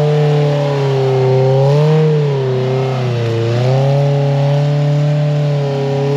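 Polaris RZR side-by-side engine held at a steady high rev under load, its pitch rising briefly about two seconds in, dipping a second later, then steadying again.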